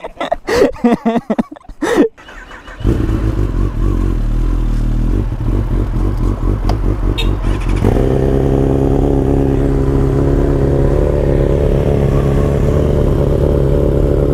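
Sport-bike engines: one starts about three seconds in and settles into a steady idle, and the sound grows fuller and steadier about eight seconds in.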